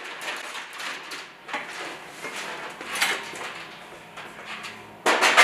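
A light aircraft's top engine cowling being lifted off and carried, with a series of clattering knocks about a second and a half apart, the loudest near the end.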